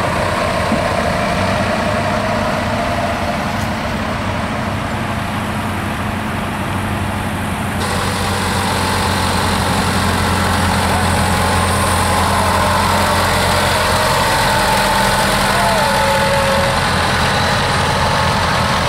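Tractor diesel engines running steadily as tractors drive slowly past, first a Fendt tractor. About eight seconds in the sound cuts abruptly to the louder engine of a blue Fortschritt tractor pulling a passenger wagon, with faint voices behind it.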